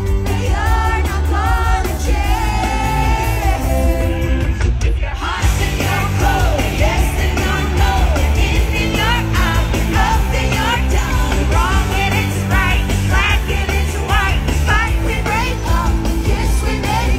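Live concert music: a woman singing over a loud pop-rock band with heavy bass. About four to five seconds in, the band briefly drops out, then comes back in.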